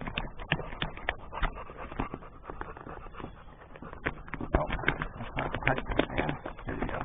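A dog panting in a canoe, over irregular knocks and clunks of the hull and gear as a man shifts about in the boat.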